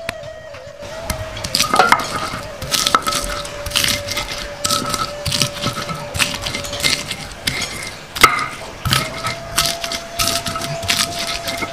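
Stone pestle crushing and grinding shallots and garlic on a flat stone grinding slab: irregular knocks and scrapes of stone on stone, with the squash of the bulbs breaking, starting about a second in.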